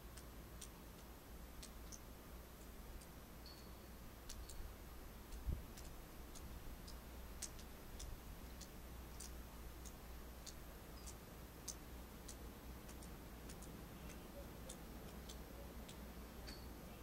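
Still winter night ambience: a steady low rumble with faint, irregular high ticks a few times a second, and one dull thump about five and a half seconds in.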